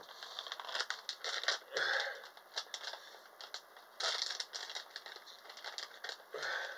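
Crinkly packaging crackling and rustling in the hands as a blind pack is torn open, in short irregular bursts of crinkles.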